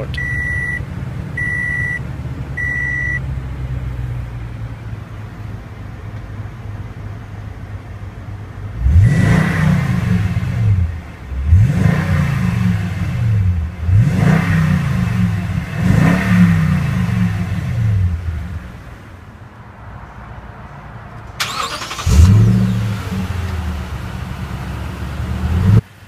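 Toyota Tundra 1794 Edition's 5.7-litre V8, just started, idling heard from the cab while a warning chime beeps three times. It is then revved four times in quick succession, each rev rising and falling in pitch, and settles back to idle. One more rev comes near the end.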